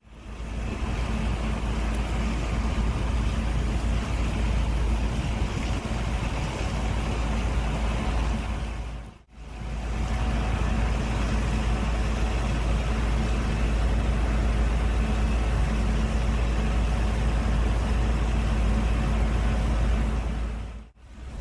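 Gleaner S98 combine running steadily under load while picking up an oat swath: a low engine rumble with a steady hum and the hiss of the threshing and pickup machinery. The sound fades out and back in briefly about nine seconds in.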